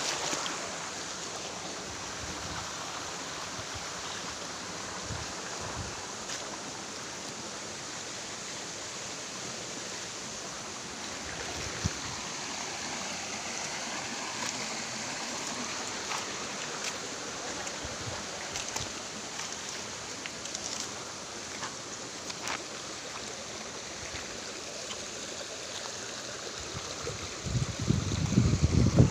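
Shallow creek running over rocks, a steady rushing sound, with a single sharp click about twelve seconds in and a burst of low rumbling near the end.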